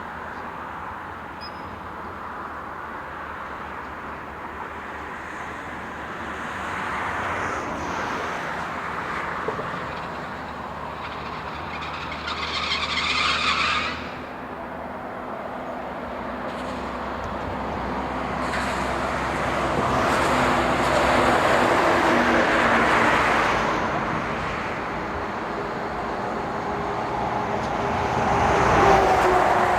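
Heavy vehicles passing one after another, the noise swelling and fading, with a brief high-pitched squeal about twelve seconds in and the loudest pass near the end.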